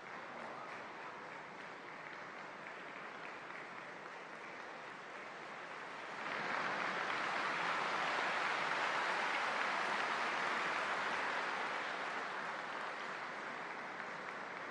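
A large audience applauding. The clapping swells clearly louder about six seconds in, then slowly dies down.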